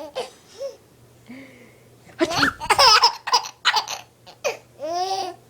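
A small child laughing in several high-pitched bursts, loudest a little after two seconds in, with more giggling near the end.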